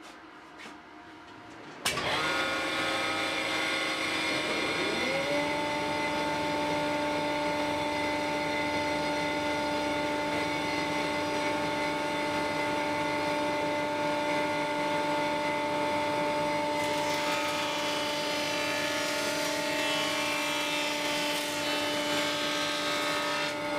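Felder Hammer K3 sliding table saw switched on about two seconds in, its Felder dado cutter head spinning up with a rising whine over the next few seconds and then running steadily. About seventeen seconds in, the dado head starts cutting a 6 mm dado in plywood, adding a rougher, higher cutting noise that stops shortly before the end.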